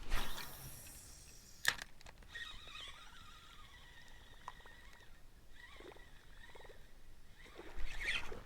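Fishing cast with a topwater lure: a swish of rod and line right at the start and a sharp click a couple of seconds in, then quieter sounds of the lure being worked across the water, and a louder splash near the end.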